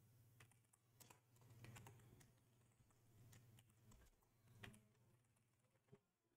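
Faint computer keyboard typing: scattered key clicks, several close together in the first two seconds and a few more later, over a steady low hum.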